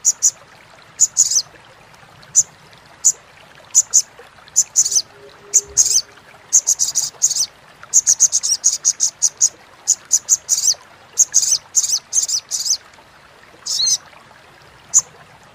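Olive-backed sunbird (sogok ontong) giving its rapid, high-pitched chattering calls (crecetan) in short bursts and quick runs with brief gaps between.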